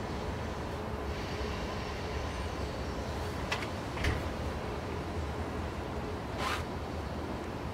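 Steady low outdoor background rumble, with three light clicks of chopsticks and spoons against ceramic bowls and plates: two about three and a half and four seconds in, one more near the end.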